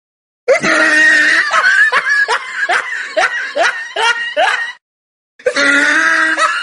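Laughter sound effect: a held note breaking into a quick run of 'ha-ha' syllables, about two to three a second. It cuts off and starts over from the top about a second before the end.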